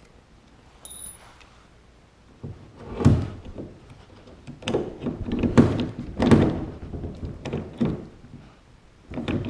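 Hand rivet gun being squeezed repeatedly to set a rivet through a pad eye into a plastic kayak hull. It gives a series of irregular clunks and clicks, about half a dozen, starting about three seconds in.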